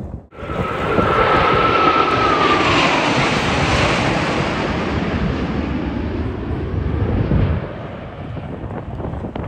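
Jet aircraft flying past: a loud rushing noise that cuts in just after the start, with a whine that drops in pitch about two and a half seconds in. The noise fades down after about seven and a half seconds.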